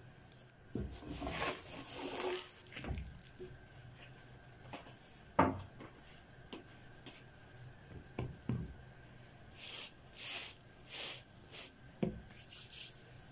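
A large stuffed flatbread being handled in a round metal pan: scraping and rubbing as it slides into the pan, a single sharp knock a little after five seconds, and scattered soft thumps. Near the end a hand rubs across the crisp crust in several short swishes.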